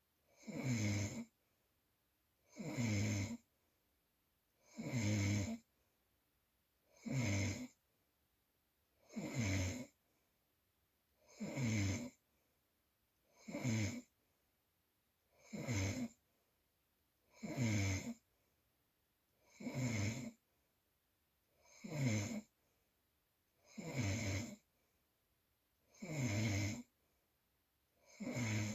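Loud snoring, very regular: about fourteen snores, one every two seconds, each under a second long with silence between.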